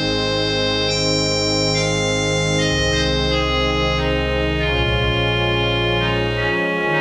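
Allen ADC-420 digital church organ playing a slow solo melody on its crumhorn stop in the normal range, over held accompaniment chords and a low bass. The chords change about three and five seconds in, and the bass drops out just before the end.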